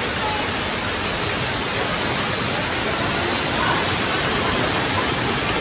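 Underground river rushing out of a karst cave mouth over rocks: a steady, even rush of white water.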